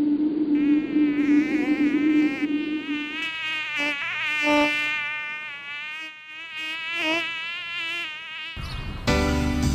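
Buzzing of a cartoon housefly sound effect, wavering up and down in pitch as the fly darts about. Music comes in about a second before the end.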